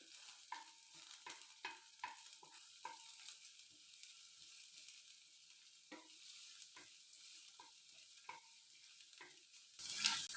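Wooden spatula stirring minced garlic frying in hot ghee in a stainless steel pan: light, irregular taps and scrapes of wood on steel over a faint sizzle, which grows a little louder near the end.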